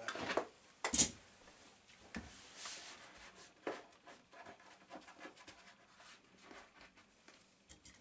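Thermal wall liner paper rustling and rubbing against the wall as it is pressed and smoothed on by hand. A single sharp snap about a second in is the loudest sound, with a lighter knock a little before four seconds.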